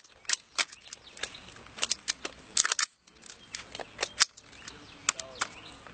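Metallic clicks and rattles of an M38 rifle being handled as a magazine is loaded: a string of sharp clicks at uneven intervals, several in quick clusters. No shots are fired.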